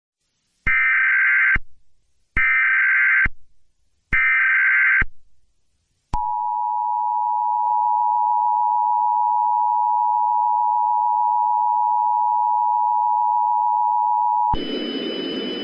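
Emergency Alert System signal: three short bursts of digital data tones about a second apart (the SAME header), then the two-tone attention signal held steady for about eight seconds, announcing a civil danger warning. The tone cuts off near the end, giving way to a hiss with faint high tones.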